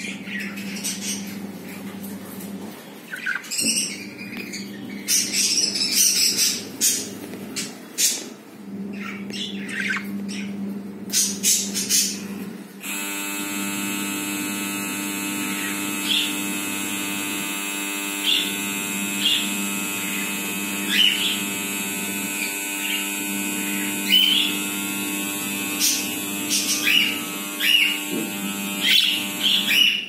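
Budgerigars chirping and squawking in short calls, with sharp clicks among them in the first part. About halfway through, a steady electrical hum starts and runs under the chirps.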